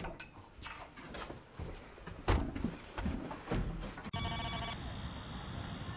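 A few scattered knocks and clicks of a door and movement, then about four seconds in a short, rapidly pulsing electronic ring, like a phone's, followed by a steady faint hum.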